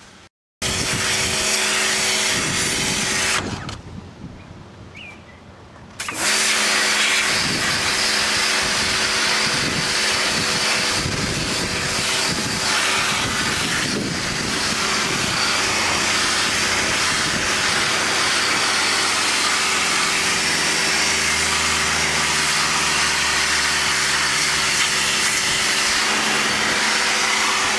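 Loud, steady machine noise with an even hum. It cuts out briefly just after the start, drops away for a couple of seconds, then runs on.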